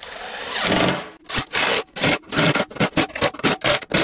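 Cordless power driver driving a bolt into a steel ATV plow mounting plate: one continuous run for about a second, then a string of short bursts as the bolt is snugged down.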